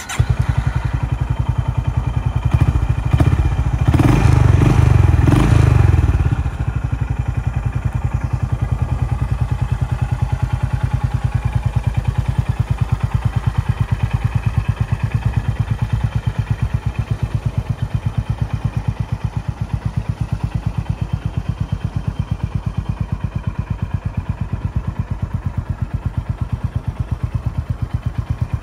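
Honda GB350S single-cylinder engine breathing through a Moriwaki aftermarket muffler. It starts up, is revved for a few seconds, then settles into a steady idle with an even, regular pulse.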